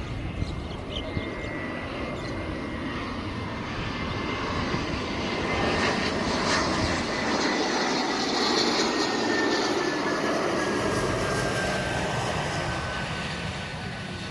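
Twin-engine business jet on landing approach flying low past: the jet engine noise swells to its loudest in the middle and then eases off, with a thin turbine whine that slowly falls in pitch.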